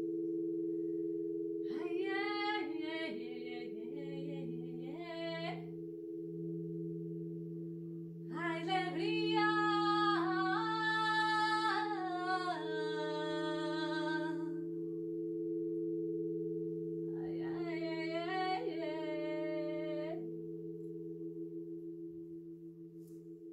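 Crystal singing bowls sounding a steady drone of several held tones, with a woman singing three wordless melodic phrases over them; the voice is loudest in the middle phrase, and the drone fades slightly near the end.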